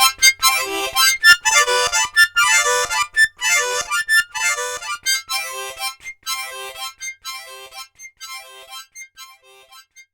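Instrumental outro music: a repeated pattern of short held chords, about two a second, fading out to almost nothing near the end.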